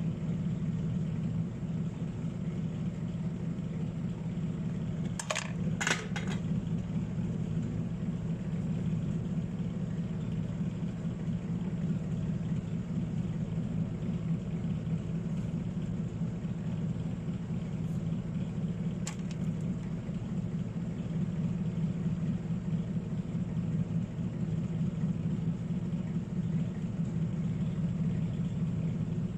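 Steady low hum of a small electric motor, with two sharp clicks about five and six seconds in and a fainter click about nineteen seconds in.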